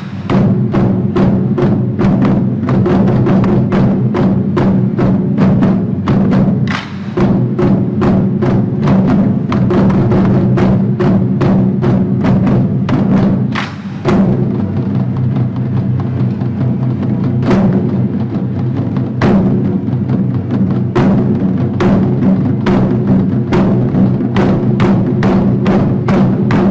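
Taiko drums struck with sticks in a steady rhythm, about three sharp strokes a second, played over a recorded music backing track with sustained tones. The rhythm drops out briefly twice.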